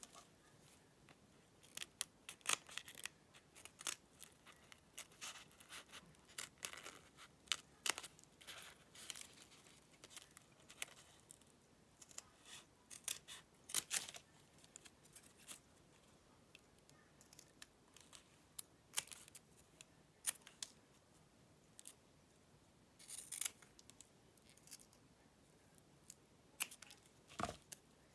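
Fabric scissors snipping through cotton fabric in short, irregular cuts, with the light crackle of the fabric being handled between cuts; a louder knock near the end.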